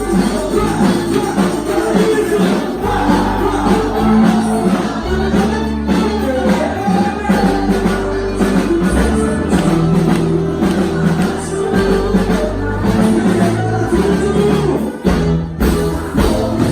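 Quadrilha junina show music: singing over sustained bass and a steady beat.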